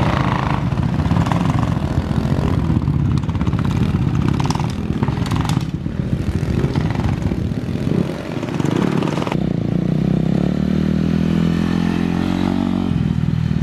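Dirt bike engines running, several small bikes among them, including Kawasaki KLX110s. Near the end a single bike rides past, its engine pitch rising and falling.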